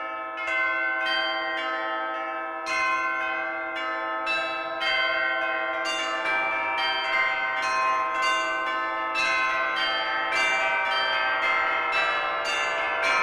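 Several church bells ringing, a stroke about every half second, each ringing on and overlapping the next.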